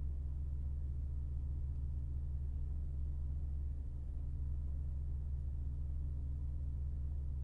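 Car engine idling steadily: a low, even hum with no revving and no change in engine speed.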